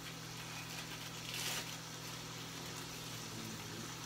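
Chopped steak sizzling in a frying pan on the stove, a steady hiss with a brief louder surge about a second and a half in, over a steady low hum.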